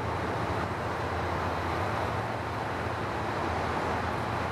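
Steady ambient noise of a railway station platform: an even hiss with a low hum underneath, and no distinct events.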